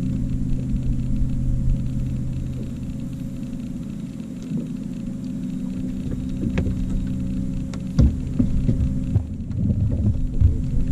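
Steady low hum of a boat motor, with a sharp knock about eight seconds in and several lighter knocks near the end.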